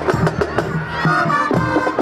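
Marching band playing: drum strikes with sustained pitched notes from band instruments over them, the held notes strongest in the second half.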